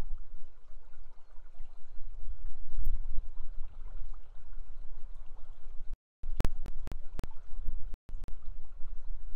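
River water rushing over a shallow riffle with a steady low rumble. The sound cuts out briefly about six seconds in and again near eight seconds, with several sharp clicks in between.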